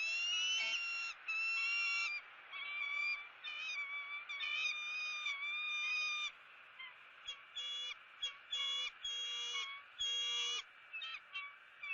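A bird's repeated high, clear calls, each from a brief chirp to about a second and a half long, some sliding slightly in pitch, with short gaps between them.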